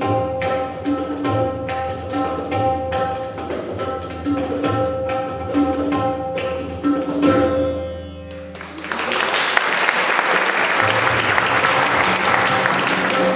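Several tabla played together: sharp ringing strokes on the treble drums over deep bass-drum notes, closing with a rapid flurry of strokes about seven seconds in. The audience then applauds loudly for the rest.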